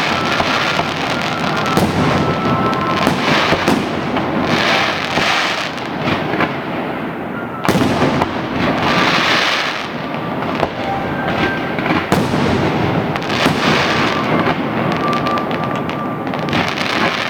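Fireworks display: a dense, continuous run of shell bursts and crackling that swells and fades in waves, with sharp bangs throughout, the loudest about eight and twelve seconds in.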